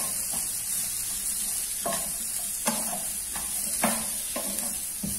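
Broccoli and carrots sizzling in hot oil in a frying pan, with a steady hiss, while a spatula stirs them, scraping and knocking against the pan about seven times.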